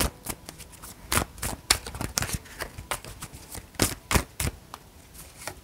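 Tarot deck being shuffled by hand: an irregular run of sharp card clicks and flicks.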